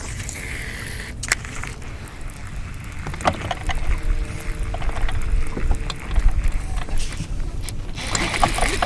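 Wind and water noise around a small fishing boat, with a low rumble and scattered light clicks and knocks.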